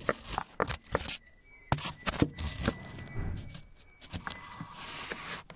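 Irregular clicks, knocks and scraping as gloved hands handle plastic and metal parts in a car engine bay, with clothing rubbing against the microphone.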